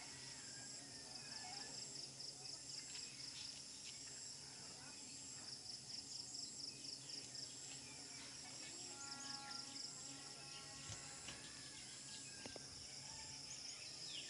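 Faint outdoor ambience: insects trilling in a high, pulsing buzz, with a few short high chirps over it.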